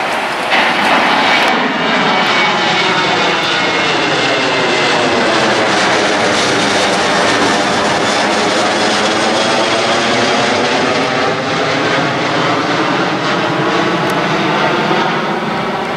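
Twin-engine jet airliner passing low overhead: a loud, steady engine roar with a slowly sweeping, phasing tone as the plane goes over and away.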